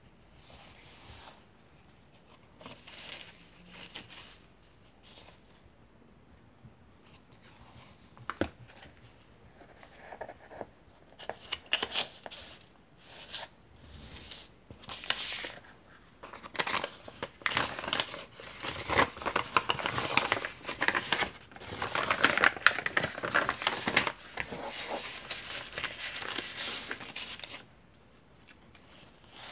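Vintage paper pages of a thick handmade junk journal being turned and handled, making soft, intermittent rustling and crinkling. The rustling grows busier and louder through the second half and stops shortly before the end.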